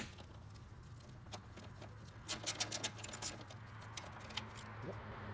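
Light clicking of a small ratchet and 10 mm socket backing out a bolt, with a sharp click at the start and a quick run of ticks about two seconds in.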